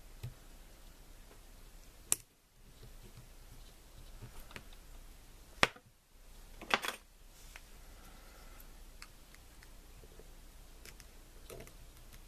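Small sharp metal clicks and taps of a tool prying at a lock's retaining clip. Two loud snaps come about two and five and a half seconds in, then a quick cluster of clicks near seven seconds, with faint ticks between.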